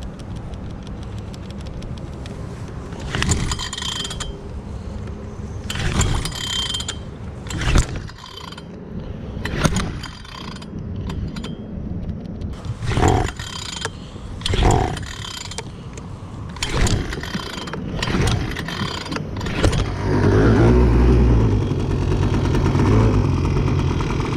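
Brand-new HangKai 3.6 HP two-stroke outboard being pull-started: a long series of yanks on the recoil starter cord, each a short rasping mechanical stroke. About twenty seconds in the engine catches and settles into a steady low idle.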